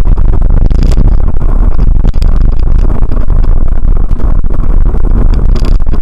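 Car driving, picked up inside the cabin by a windscreen dash cam's microphone: a loud, steady low rumble of engine and road, with frequent small clicks and rattles throughout.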